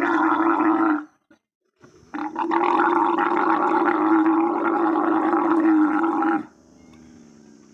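A camel bellowing in long, loud pitched calls: one call ends about a second in, and after a short pause a second call runs about four seconds, followed by a fainter, lower sound near the end.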